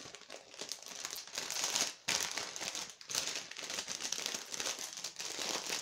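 Plastic packaging crinkling as it is handled, in a dense continuous rustle with two brief pauses about two and three seconds in.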